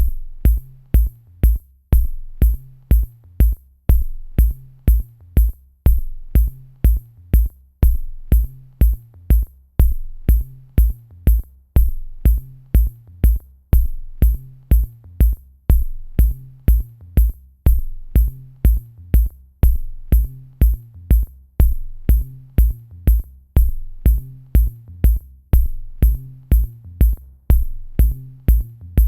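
Electronic dance music with a drum machine: a steady kick drum about two beats a second under a bass line, with sharp high percussion on the beats.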